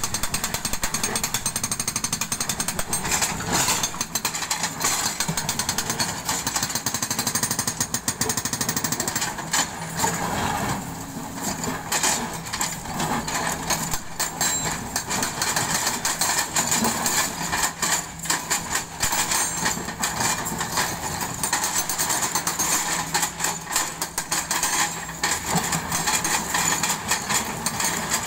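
Hydraulic breaker on a Kobelco excavator hammering rock in rapid, continuous blows, with a brief let-up about ten seconds in. Underneath is the steady running of the excavators' diesel engines.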